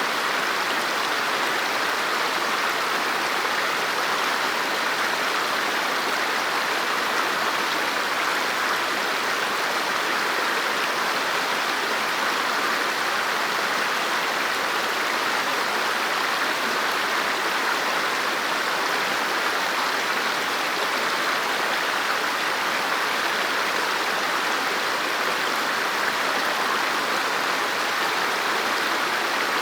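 River water flowing over rocks, a steady, even rushing and burbling.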